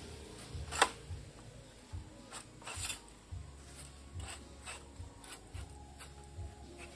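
Metal clicks, knocks and scraping as an egrek (oil palm harvesting sickle) is fitted and tightened onto its pole, with one sharp knock about a second in and smaller clicks after it.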